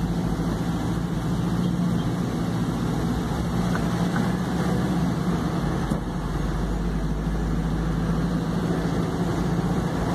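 Truck's diesel engine and road noise droning steadily inside the cab while driving, with a strong low hum that does not change.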